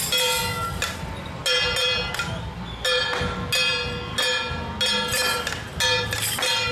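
Metal percussion struck at an uneven beat, about once a second, each stroke ringing out bell-like for up to a second, over a low rumble.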